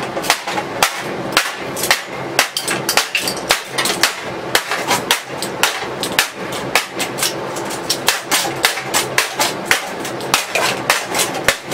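A rapid, uneven series of sharp knocks, about two or three a second, as a hard plastic part of a kitchen mixer is struck repeatedly; the tough plastic is not breaking.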